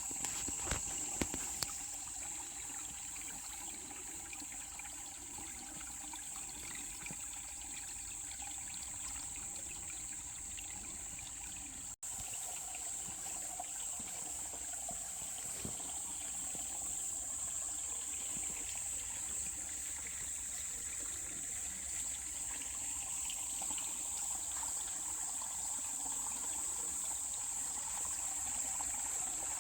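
Water trickling steadily, like a small forest stream, under a steady high-pitched whine. Near the middle the sound drops out for an instant at an edit.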